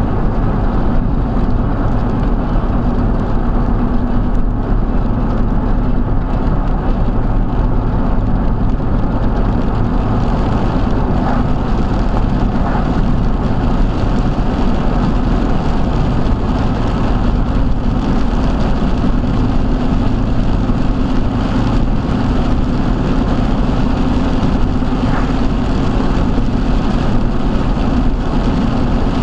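Steady engine and road noise of a vehicle driving along, with a constant low hum.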